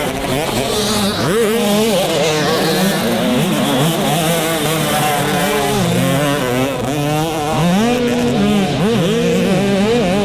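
Several motocross dirt bike engines on track, revving up and falling back over and over as the riders work the throttle, their pitches overlapping.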